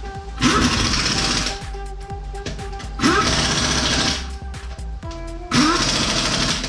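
Background music: a rhythmic electronic track whose loud, buzzing swells, each opening with a rising sweep, repeat about every two and a half seconds over steady held notes.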